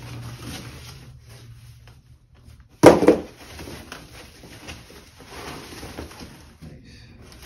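White packing paper rustling and crinkling as it is handled, with one sudden loud bump about three seconds in.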